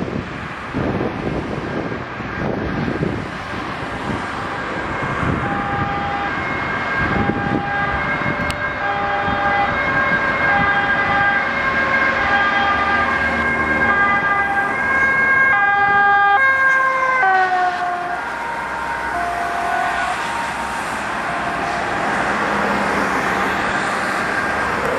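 Dutch ambulance's two-tone siren, alternating high and low, coming in over passing road traffic about a quarter of the way through and growing louder as it approaches. About two-thirds of the way through its pitch drops as the ambulance passes, and it carries on lower while moving away.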